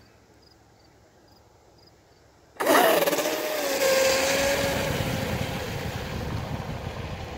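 A Pro Boat UL-19 radio-controlled hydroplane running at speed. Its brushless electric motor gives a high whine over the hiss of the hull and spray on the water. The sound cuts in suddenly about two and a half seconds in, drops slightly in pitch, then holds steady and fades as the boat runs away.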